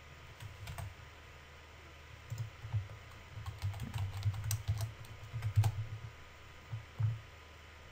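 Typing on a computer keyboard: irregular runs of keystrokes, busiest in the middle and stopping about a second before the end.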